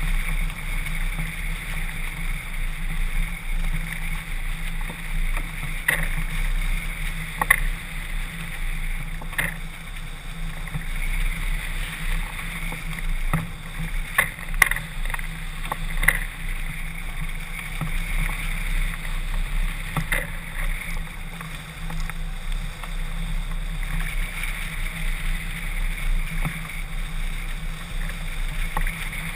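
Steady rush of airflow over the microphone of a camera mounted on a hang glider in flight, with occasional sharp clicks.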